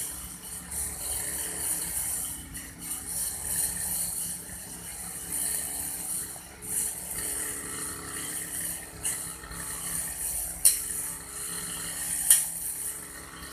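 Old grass-cutting machine at work, giving a steady rasping hiss with two sharp clicks near the end.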